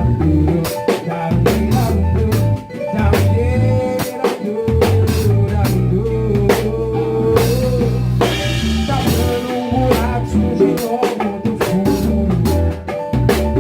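A live band playing a song: drum kit with rimshots, bass and a melody line over it.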